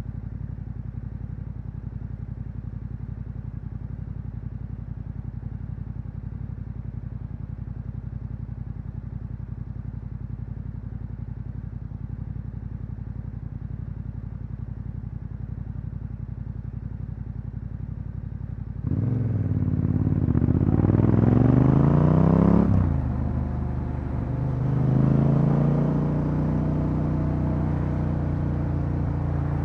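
Yamaha Ténéré 700's parallel-twin engine through an Akrapovič exhaust idling steadily, then pulling away at about 19 s with its note rising under throttle. It drops off briefly at a gear change, then climbs again and settles into a steady cruise.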